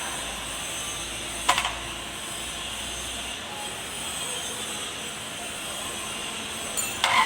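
Kubota D905 three-cylinder diesel engine running steadily, with a sharp knock about a second and a half in and a short clatter near the end.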